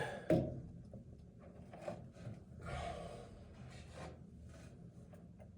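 A filter cartridge is pushed into its plastic housing with a single knock, followed by faint handling clicks and a breath out.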